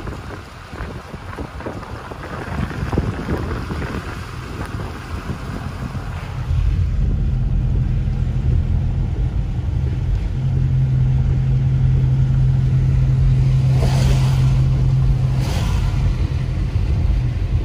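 Car driving on a wet road in the rain: tyre hiss and wind rush at first, then a sudden step up to a steady low engine and road drone heard inside the cabin. Two brief swishes of the windshield wipers come near the end.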